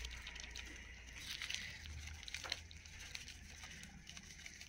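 Faint crackling of spice masala frying in a wok as red chili powder is poured in from a packet: scattered small ticks over a low steady hum.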